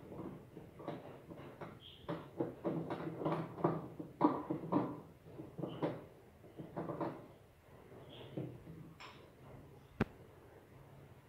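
A hand pressing and turning chicken pieces in a glass bowl of flour to coat them for frying, making soft, irregular pats and rustles that ease off after about seven seconds. A single sharp click comes about ten seconds in.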